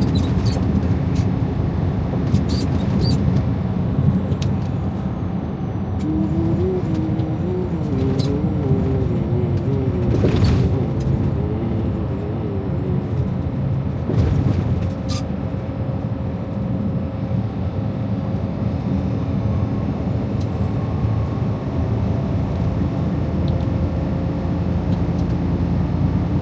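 Steady engine and road noise inside the cab of a Freightliner Cascadia semi truck cruising at highway speed. A faint wavering tone rises and falls for several seconds midway, and there are a few light clicks.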